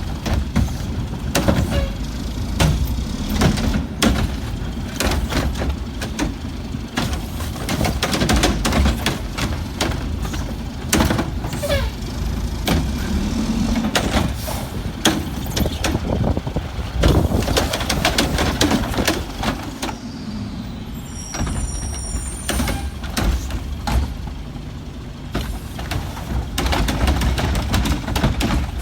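Old Heil garbage truck's diesel engine running with a low rumble, with many sharp taps and knocks through it, in pouring rain. A brief high-pitched squeal comes about two-thirds of the way through.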